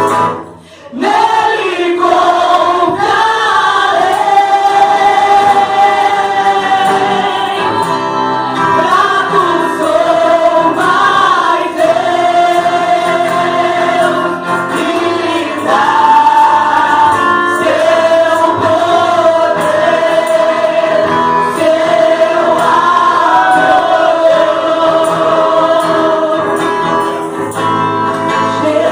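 Church praise choir singing gospel music, with long held notes; the sound drops out briefly about a second in, then the singing carries on.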